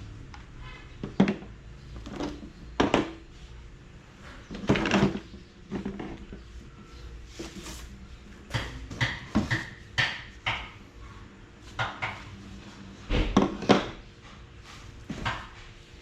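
Irregular knocks, clicks and clatter of hard objects being handled and set down, a few at a time, with a loud cluster near the end.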